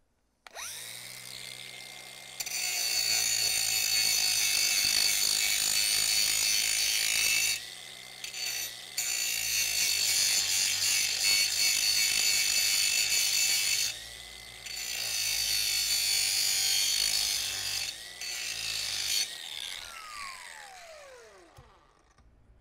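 Angle grinder starting up and grinding the edge of a steel blank clamped in a vise, squaring it up: three long passes of the wheel on the metal, with the motor's steady whine between them. Near the end the motor is switched off and spins down with a falling whine.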